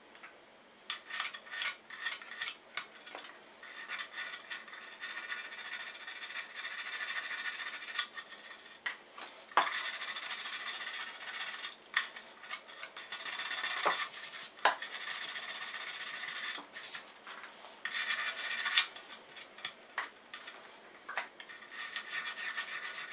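Sandpaper rubbed by hand along the edge of a wooden guitar body's f-hole, in irregular back-and-forth strokes that are scratchy and hissy. There are a few sharp ticks near the middle.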